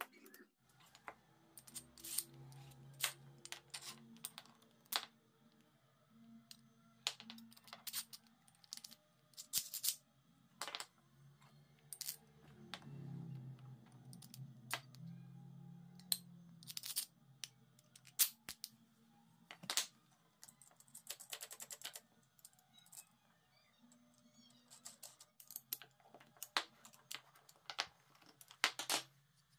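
Wooden clamp parts, threaded steel rods, nuts and washers being handled and fitted together on a workbench: irregular clicks, knocks and light metal clinks, over faint background music.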